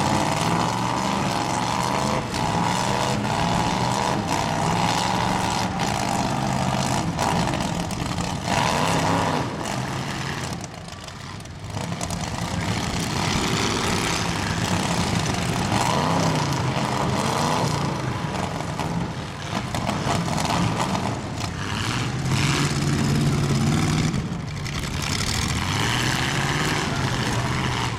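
Demolition derby cars' engines revving up and falling back again and again, with scattered sharp bangs of impacts.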